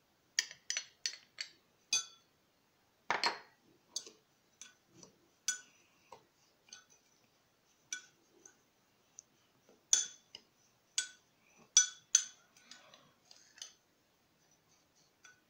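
A spoon stirring ground spices in a glass measuring cup: irregular light clinks and taps of the spoon against the glass, a few of them ringing briefly.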